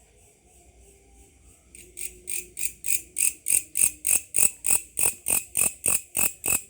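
Grasshopper calling with an even train of short, sharp pulses, about four a second, that sounds like a cricket. The pulses are faint at first and become much louder about two seconds in.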